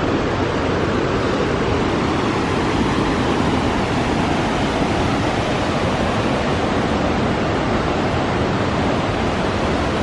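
Steady rush of the Wailuku River's cascading waterfalls and pools.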